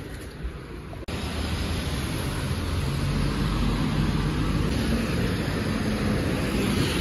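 Cars passing on a wet road: tyre hiss on the wet asphalt with engine hum. The traffic noise starts abruptly about a second in and then stays steady.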